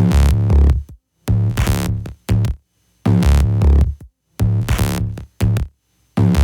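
Electronic background music with a heavy drum-machine beat, playing in chopped phrases that start and stop sharply.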